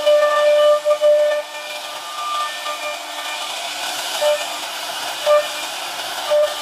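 CNC router spindle cutting grooves into a wooden door panel: a steady hiss of the cut under a high whine, strongest in the first second and a half, then coming back only in short blips.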